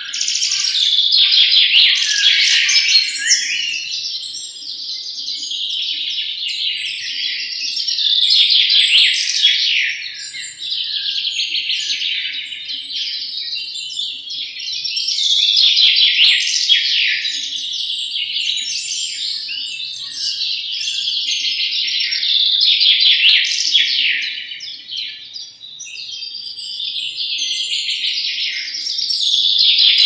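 European goldfinches singing: a continuous, fast, twittering song full of rapid trills, starting abruptly and swelling louder about every seven seconds.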